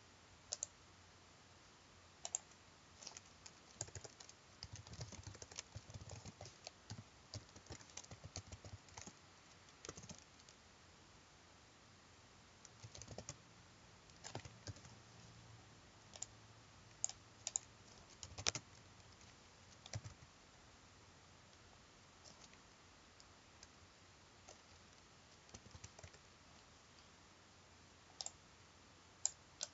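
Typing on a computer keyboard: irregular runs of keystrokes with pauses between them, faint against a quiet room.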